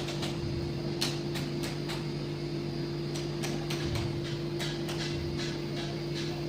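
Steady electrical hum of a copper-brazing machine, with irregular sharp crackles and ticks over it.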